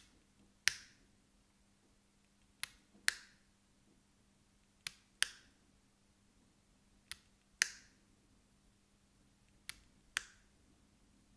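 Inline cord switch on a lamp clicked on and off in pairs, five times at about two-and-a-half-second intervals: the lamp's power is being cycled in rhythm to put its IKEA TRÅDFRI bulb into pairing mode.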